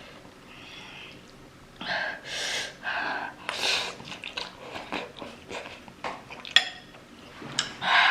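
Heavy, hissing breaths in and out, several in quick succession, from someone whose mouth is burning from extremely spicy noodles. A single sharp click about six and a half seconds in.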